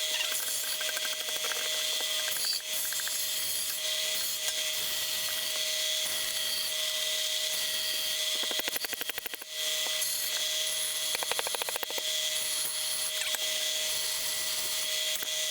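Small power tool running steadily on the wood of an axe handle being shaped, with a steady whine, and short bursts of rapid chattering about eight and eleven seconds in.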